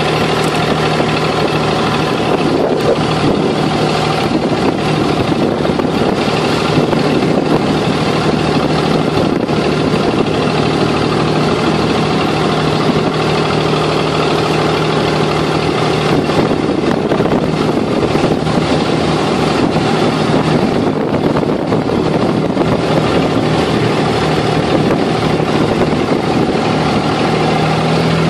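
Abra water taxi's inboard diesel engine running steadily under way, a loud, even drone with a constant low hum.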